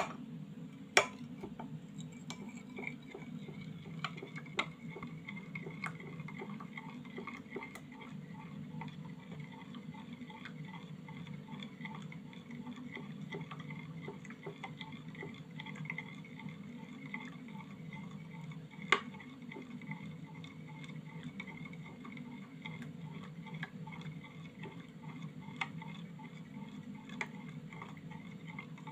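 A metal spoon stirring a drink in a glass tumbler, ticking and clinking against the glass again and again at an uneven pace, with a few louder clinks. A steady low hum runs underneath.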